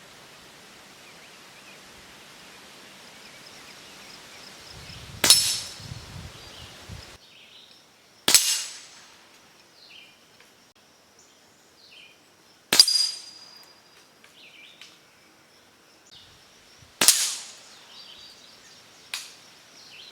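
Hatsan Factor RC .22 pre-charged pneumatic air rifle firing four sharp shots a few seconds apart, each a short crack that dies away quickly, followed near the end by a fainter sharp click.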